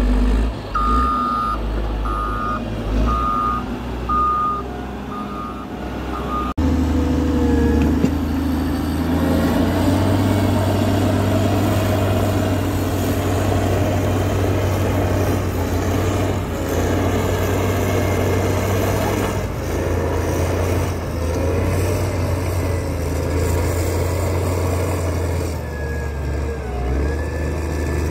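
Caterpillar 12M motor grader's diesel engine running under load as its blade spreads stony fill. A backup alarm beeps steadily, a little over once a second, for the first six seconds, then stops abruptly; after that only the engine's steady drone is heard.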